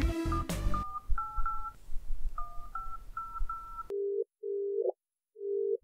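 Touch-tone telephone being dialed: a quick run of short two-tone beeps as a number is keyed in, then a low ringing tone sounds three times on the line while the call goes through. A music sting ends in the first second.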